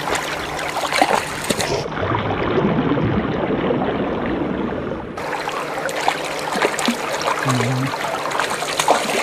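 River water splashing and trickling as a grayling thrashes at the surface, with many small splashes and drips. For about three seconds in the middle the sound turns dull and muffled, the high end cut off.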